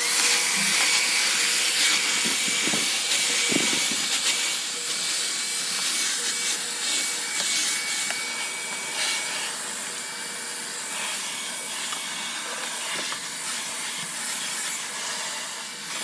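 Bissell Featherweight corded stick vacuum switched on and running steadily while vacuuming carpet: a loud rushing of air with a steady high-pitched motor whine, starting suddenly and easing a little after several seconds.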